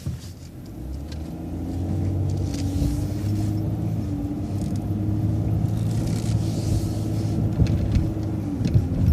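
City transit bus pulling away from a stop sign: the engine and drivetrain swell about a second in as it accelerates, then hold a steady, low droning rumble.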